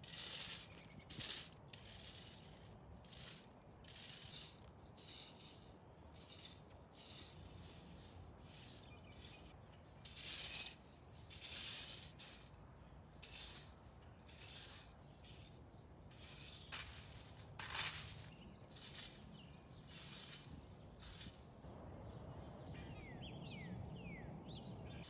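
Metal leaf rake tines scraping across bare soil in repeated strokes, about one to two a second, stopping near the end.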